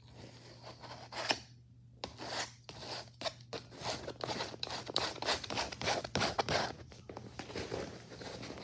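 Metal palette knife scraping and spreading thick paint across a textured canvas in quick, repeated strokes, with a single sharp click just after a second in.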